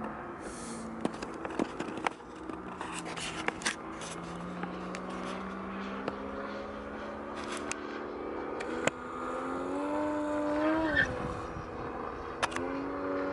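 ZDZ 180 two-stroke petrol engine of a large-scale Extra 260 model aircraft running in flight, its note gliding up and down, climbing about nine seconds in and then dropping sharply. Scattered sharp clicks and knocks on the microphone.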